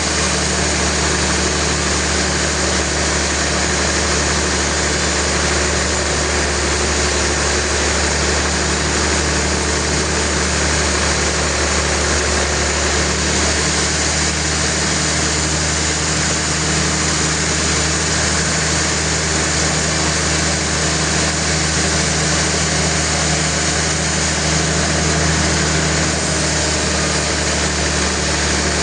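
Sawmill machinery running steadily: a loud, constant engine-like drone with a low hum and no change in pitch or level.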